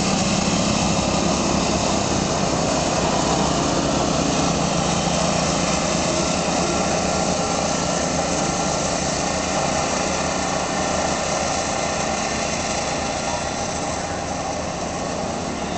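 Small go-kart engines buzzing steadily as several karts drive around the track, loudest at first and growing a little fainter in the second half.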